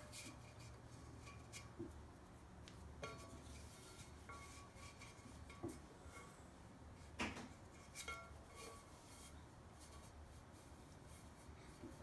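Faint, scattered soft taps and clicks as hands set small wads of clay onto a potter's wheel head and press them against a pot's base to hold it for trimming, with the clearest tap about seven seconds in. A low steady hum runs underneath.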